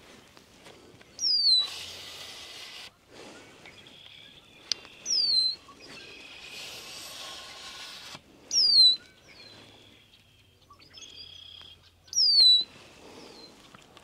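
A perched songbird singing the same song four times, about every three and a half seconds: each song is a sharp falling whistle followed by a buzzy trill. Fainter bird chirps come in between.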